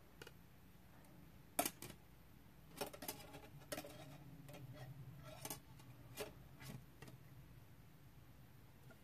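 Faint, scattered clicks and ticks of steel stepped bail-making pliers and enameled wire being handled while the wire is bent around a crystal bead. The sharpest click comes about a second and a half in, and the clicks stop about seven seconds in.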